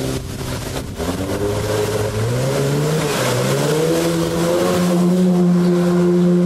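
Evinrude MFE 55 two-stroke jet-drive outboard pushing an inflatable boat at speed: its pitch climbs over the first few seconds as it revs up, then holds steady at high revs near the end.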